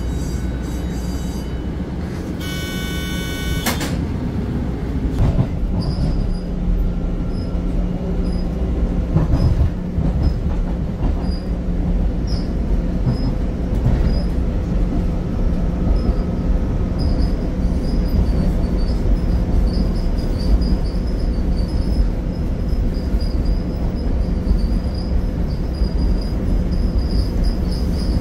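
Pittsburgh light-rail train heard from inside the car: a brief high ringing tone about three seconds in, then the train moves off and runs on with a steady rumble and a thin high wheel squeal. The squeal comes and goes at first and becomes more continuous later.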